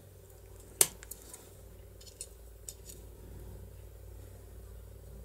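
Small metal parts clicking as a DOM IX lock cylinder and its gear ring are handled in a pair of pliers: one sharp click about a second in, then a few lighter ticks.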